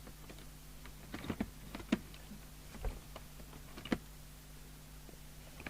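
Scattered clicks and knocks of plugs and test leads being handled and connected on an electronics test bench, over a steady low hum.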